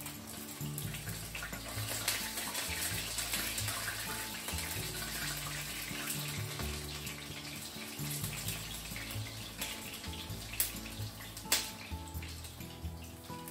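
Chicken pieces shallow-frying in hot vegetable oil in a frying pan: a steady sizzle, with two sharp clicks near the end, over background music.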